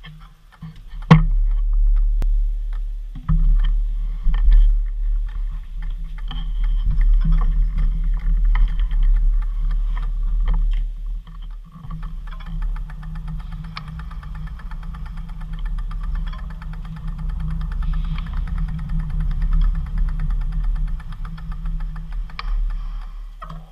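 Wind and road rumble on a bicycle-mounted GoPro Hero4 Silver, with a constant low rumble and scattered rattles and knocks. A sharp, loud knock comes about a second in.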